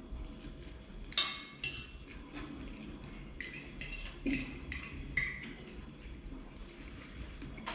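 Metal fork clinking and scraping against a plate while eating: about eight short ringing clinks, the loudest a little over a second in.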